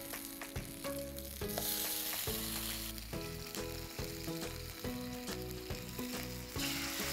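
A ladle clinks and scrapes in a clay pot as simmered mutton and stock are scooped into a second clay pot on a gas burner. Two hissing bursts of sizzling come as the hot liquid goes in, about a second and a half in and again near the end.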